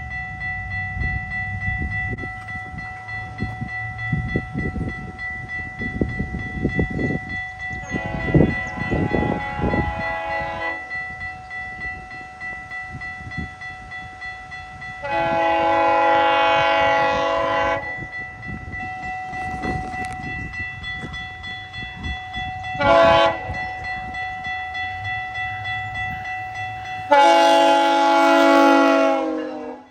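GO Transit cab car's multi-note train horn sounding the grade-crossing signal: long, long, short, long, with the first long blast fainter than the rest. A steady high ringing tone runs underneath.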